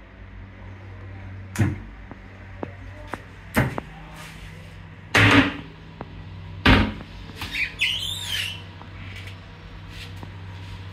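Kitchen cupboard doors being opened and shut: several knocks and clunks, the loudest about five and seven seconds in, and a brief high squeak around eight seconds in, over a low steady hum.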